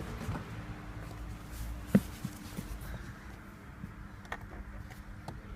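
Mitsubishi 6B31 3.0-litre V6 running steadily at idle on its first start after new hydraulic lash adjusters were fitted. There is a sharp knock about two seconds in and a lighter click about four seconds in.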